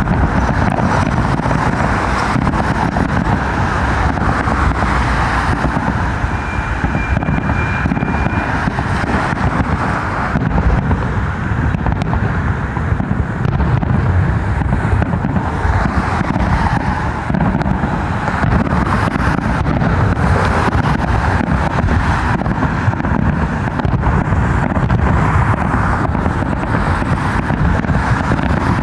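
Steady road traffic noise, with cars running along a busy road.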